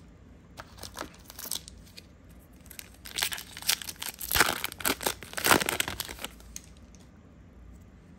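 A trading-card booster pack's foil wrapper being torn open by hand: a few light crinkles, then about three seconds in, some three seconds of dense crackling and tearing, loudest in the middle.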